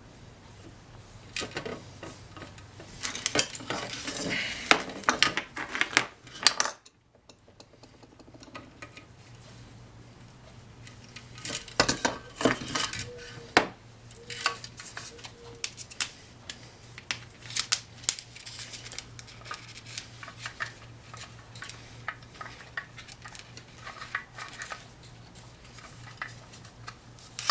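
Small metal parts and hand tools being handled, with irregular clinks, clicks and knocks that bunch up in a few busy spells, over a low steady hum.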